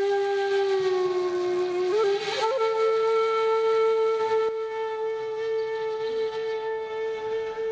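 Shakuhachi playing long held notes: the first note sags slightly in pitch, then about two seconds in a quick ornamented slide leads up to a higher note that is held steadily.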